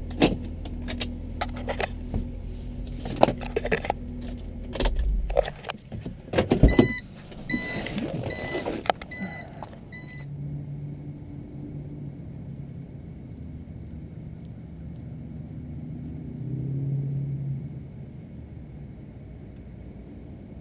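Car engine idling, then switched off about five seconds in. Clicks and knocks follow, one of them loud, with a jangle and a rapid high electronic beeping like a car's door chime. After that, a quiet steady outdoor background with a low hum.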